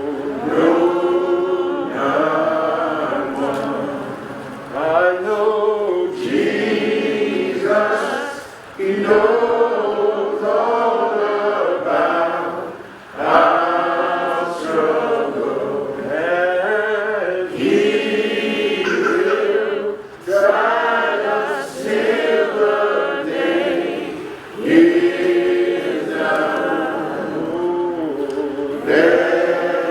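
A choir singing together in phrases a few seconds long, with short breaks between them.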